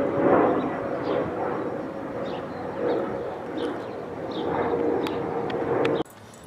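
Outdoor street noise: a steady engine hum drifting slightly lower in pitch, with faint short chirps. It drops away suddenly about six seconds in.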